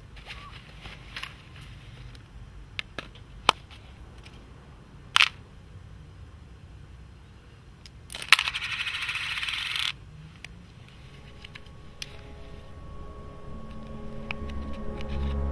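Several sharp clicks of a small hard object knocking on pavement, then a harsh rustling scrape lasting about two seconds. Low, dark music with held tones swells in near the end.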